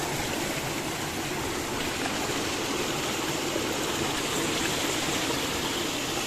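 Steady, even rush of a hill stream's flowing water.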